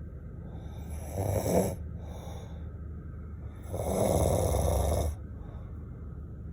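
Someone snoring: a short snore about a second in, a weaker breath after it, then a longer, louder snore from about four to five seconds in.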